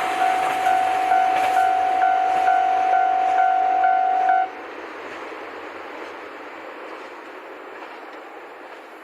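Japanese level-crossing warning bell ringing in a steady pulse about twice a second, then cutting off sharply about four and a half seconds in, as the crossing clears after the train. Beneath it the rumble of a KiHa 261 series diesel express fades as it moves away.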